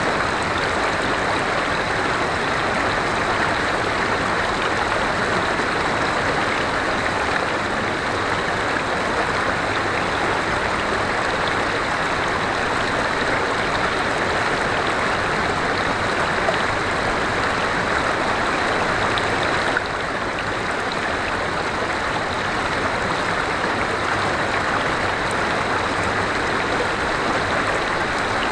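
River water flowing, a steady unbroken rush, dipping slightly in level about twenty seconds in.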